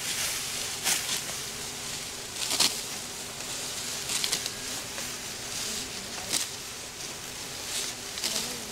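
Dry rustling swishes, one every second or two, over a faint steady hum.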